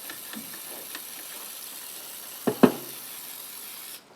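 A steady hiss that cuts off abruptly near the end, with two quick knocks of handling about two and a half seconds in.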